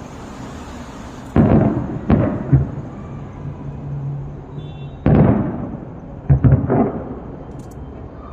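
Fireworks shells bursting in the air: a run of sharp booms, three about a second and a half to two and a half seconds in, then another cluster from about five to seven seconds in, with a rumble between the bangs.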